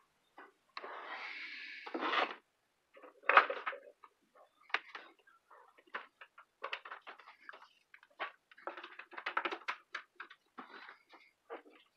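Cables and plugs being handled and plugged in under a desk: rustling and scraping of cords with irregular small clicks and knocks, a longer scrape in the first two seconds and one louder knock a little over three seconds in.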